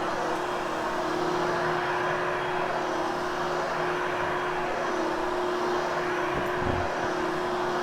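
Vacuum cleaner running steadily over carpet, its motor giving a constant whine, grooming the pile after cleaning. A brief low bump comes near the end.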